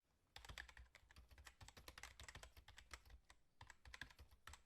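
Faint, rapid run of small clicks and crackles, many per second, with a brief lull near the end.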